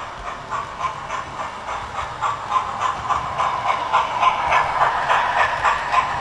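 Model trains running past close by on the layout track, a steady whirr with rapid clicking of the wheels over the rails, getting louder about four seconds in as both trains pass.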